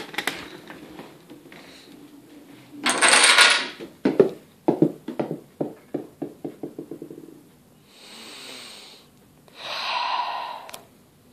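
Balls and parts of a homemade Rube Goldberg machine running: a few clicks as it is set off, a loud rush about three seconds in, then a run of evenly spaced knocks, about three or four a second, fading out over some three seconds. Two softer hissing stretches follow near the end.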